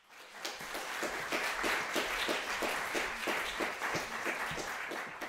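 Audience applauding, swelling in over the first second.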